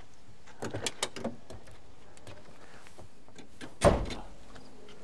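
Door hardware of a 1974 Mercury Colony Park wagon being worked: a few sharp latch clicks about a second in, then one heavy thunk near the end.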